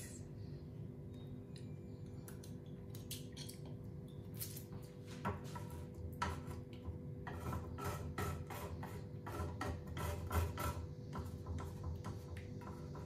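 Hot oil popping and crackling in a frying pan as an egg fries: irregular sharp pops, sparse at first and coming thicker through the second half, over a steady low hum.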